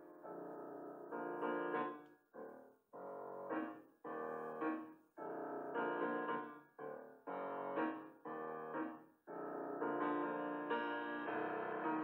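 Background piano music: notes and chords struck and left to fade, in short phrases broken by brief pauses, then played on without a break for the last few seconds.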